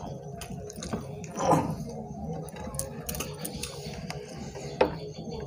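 Eating rice and curry by hand: fingers squishing and mixing rice on a plate, with chewing and many small mouth clicks. One louder short sound comes about a second and a half in, and a sharp click near the end.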